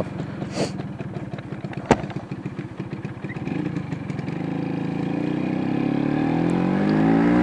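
Vespa P200E scooter's two-stroke single-cylinder engine running at low speed with a rapid pulsing putter, then revving up from about four seconds in as the scooter pulls away, its pitch rising steadily. A single sharp click about two seconds in.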